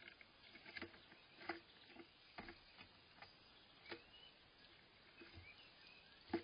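Great tit pecking at and handling sunflower seeds on a plastic window box: faint, irregular taps and clicks, roughly one or two a second.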